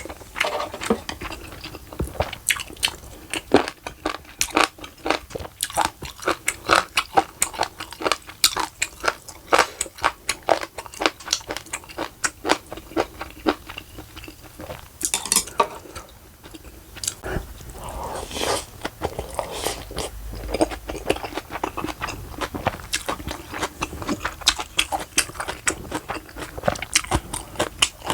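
A person chewing crunchy food close to the microphone, with rapid crisp crunches and wet mouth sounds, as when eating steamed monkfish with bean sprouts and fresh cabbage kimchi. The crunching pauses briefly about halfway through.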